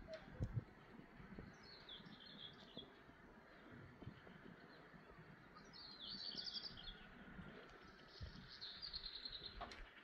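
A songbird singing three short phrases of fast, trilled notes, faint over a low rumbling background.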